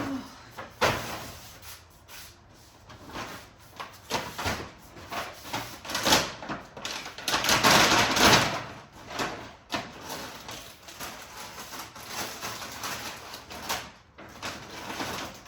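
Knocks and clatter of groceries, containers and fridge or cupboard doors and drawers being handled while a fridge is packed, with a longer rustling noise from about seven to nine seconds in.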